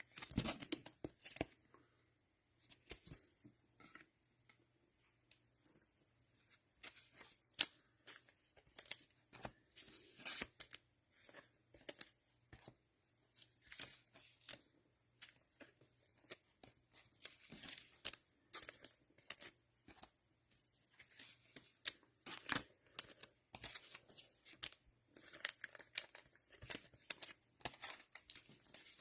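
Panini Mosaic football cello packs being torn open, their plastic wrappers crinkling and the trading cards rustling, as a steady run of faint crackles.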